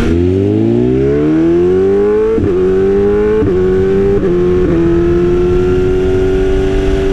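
2020 BMW S1000RR M Sport's inline-four through an Austin Racing exhaust, accelerating from low revs with a steadily rising pitch. It shifts up through the gears with brief breaks in the note about two and a half, three and a half and four and a half seconds in, then settles to a steady cruise.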